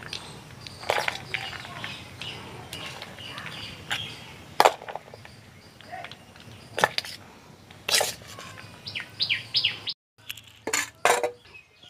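Steel spoon scraping and clinking against a steel bowl as spiced chickpea chaat is tipped out onto a plate, in scattered sharp clinks. A quick run of short bird chirps comes about nine seconds in.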